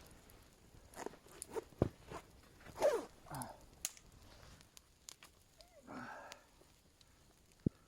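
Scattered sharp clicks and cracks with a few brief rustling scrapes, the handling and movement noises of a person working at a forest camp. The loudest scrape comes about three seconds in, and a single sharp crack comes near the end.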